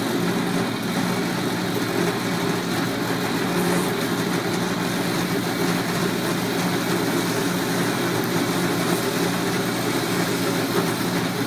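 Milling machine running steadily with its spindle turning: an even motor hum with a constant hiss over it, no cuts or changes.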